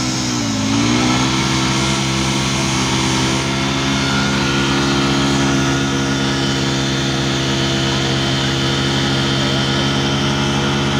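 Jawa motorcycle's single-cylinder engine held at high revs during a rear-wheel burnout. The note dips briefly in the first second, then holds steady.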